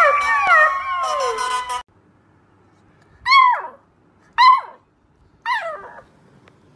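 A golden-coated puppy howling, a long held note with other falling wails over it, cut off about two seconds in. Then a beagle puppy gives three short howls a second apart, each dropping steeply in pitch.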